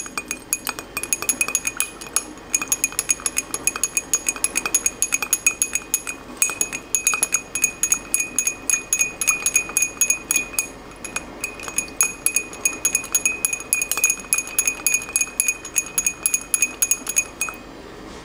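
A spoon stirring briskly in a glass container, clinking against the sides several times a second, with a ringing glass tone. This is fragrance oil being mixed into a perfumer's alcohol base. The stirring stops shortly before the end.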